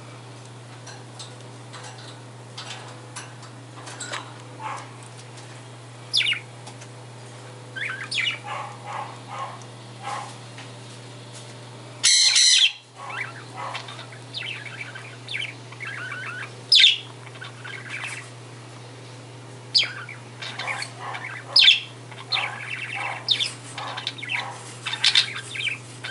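Pet budgie chirping and chattering in short calls and quick sweeping notes, with a brief loud burst of noise about halfway through. A steady low hum runs underneath.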